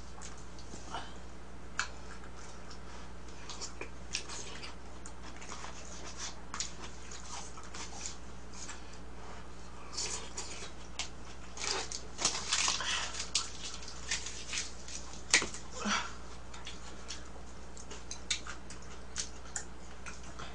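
Eating sounds: a spoon clicking and scraping in a plastic container of mung bean porridge, with slurps and mouth sounds, busiest about twelve seconds in and with one sharp click about fifteen seconds in. A low steady hum lies underneath.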